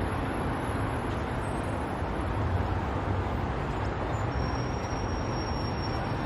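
Steady ambient background noise, a low rumble under an even hiss, like distant traffic.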